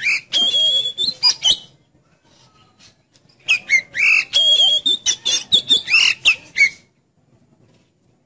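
Oriental magpie-robin (kacer) singing in two loud bursts of quick, sweeping whistled notes, each with a held high whistle. The first burst is at the start and the second runs from about three and a half to seven seconds in.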